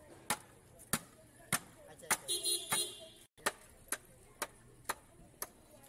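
A wooden baton knocking on the back of a large blade to drive it through a thick cut of catla fish, about ten sharp knocks roughly half a second apart. A short tonal sound comes partway through.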